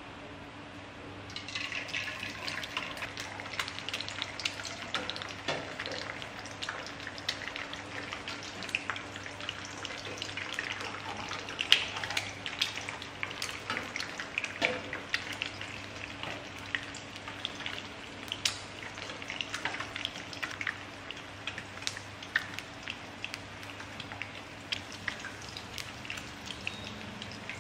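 An egg frying in hot oil in a small non-stick pan. It starts to sizzle suddenly about a second in as it drops into the oil, then keeps up a crackling sizzle with many sharp spattering pops. A faint steady hum runs underneath.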